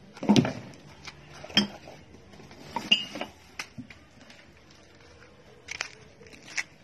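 A plastic basin of soil being handled and tipped out onto the ground: a handful of separate knocks and clatters, the loudest a thump just after the start, with two more near the end.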